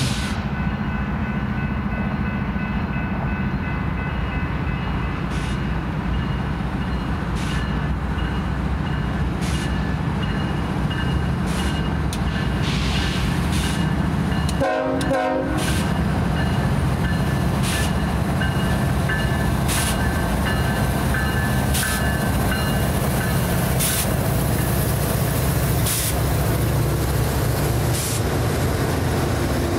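Diesel locomotives of a BNSF freight train, led by unit 7464, running past close by with a steady heavy engine rumble. A short horn blast of about a second sounds about halfway through, and faint sharp clicks come roughly every two seconds.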